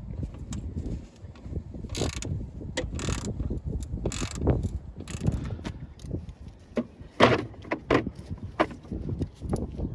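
Irregular metallic clicks, scrapes and rattles of hand-tool work fitting a new car hood latch.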